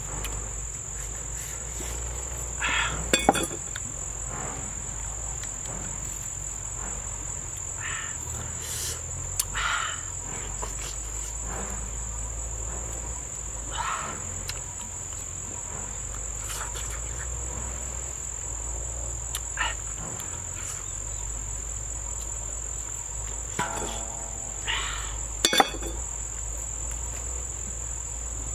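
Steady high-pitched drone of insects in unbroken chorus. Brief sharp knocks break in about three seconds in and again near the end.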